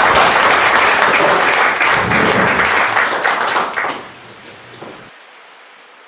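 Small audience applauding, a dense patter of hand claps that dies away after about four seconds. Near the end it gives way to a faint steady hiss.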